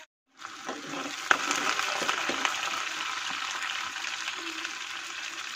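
Sliced onions sizzling in plenty of hot oil in a steel kadai, with a metal ladle stirring and clicking against the pan; one sharp clack a little over a second in.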